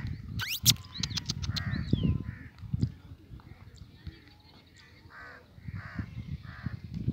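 Crows cawing, a run of short harsh calls with a pause of about a second in the middle. A few sharp, high-pitched squeaks and clicks come about half a second in.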